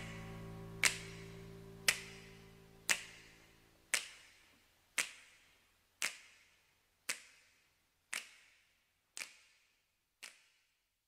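The fade-out ending of a song: a sustained chord rings and dies away over the first few seconds, while a sharp click repeats about once a second, growing steadily fainter until it is gone near the end.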